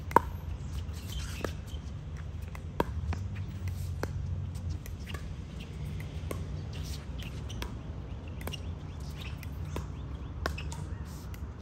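Pickleball rally: sharp pops of paddles hitting the plastic ball about every second or two, the loudest just at the start, with short sneaker squeaks on the court over a steady low hum.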